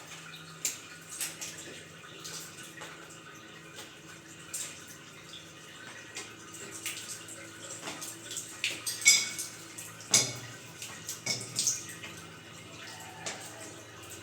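Scattered clicks, taps and light clinks of metal plumbing fittings being handled and threaded by hand, the loudest about nine and ten seconds in.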